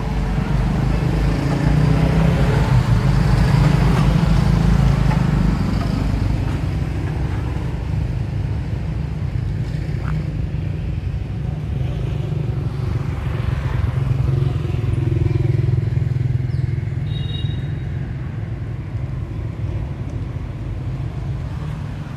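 Steady low rumble of a motor engine, swelling early on and again about two-thirds of the way through, then fading away.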